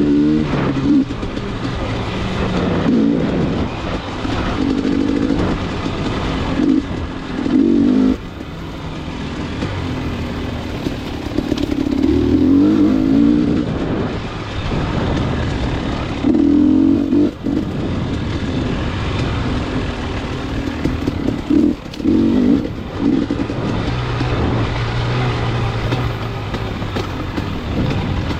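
Motor vehicle running on the road: steady engine and road noise that swells and eases as it drives.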